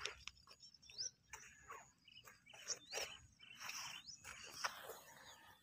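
Faint birds chirping outdoors, a few short calls that sweep upward, over light scattered rustling noise.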